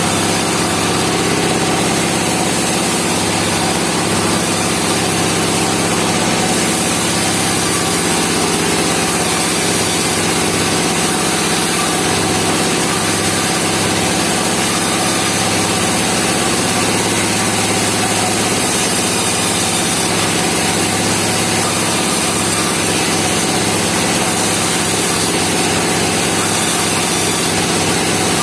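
Band sawmill machinery running steadily at a constant level, its engine drone unbroken throughout.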